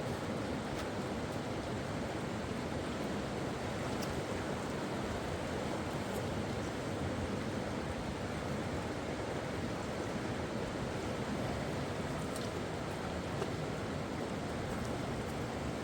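Steady rush of flowing river water, even and unbroken, with a few faint clicks.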